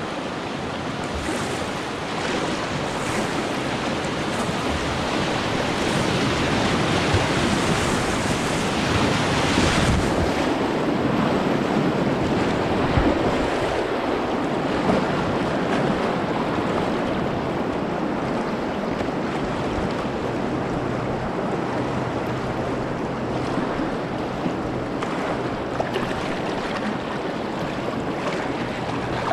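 Rushing river water with wind on the microphone, swelling over the first ten seconds or so and then easing to a steady rush.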